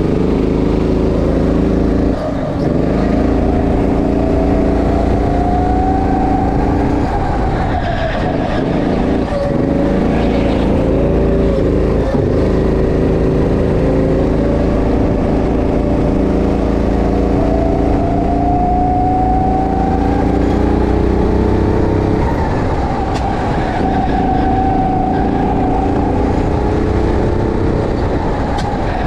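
Petrol go-kart engine running at full effort under the driver, its pitch climbing as the kart speeds up and dropping back several times as it slows for corners.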